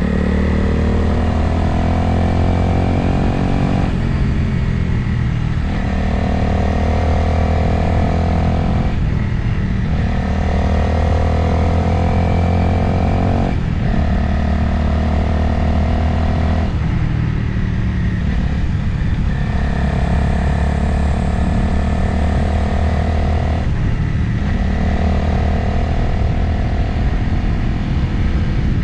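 Motorcycle engine running at steady road speed with wind noise; every few seconds the engine note breaks off briefly and then settles again as the throttle is eased and reopened or a gear is changed.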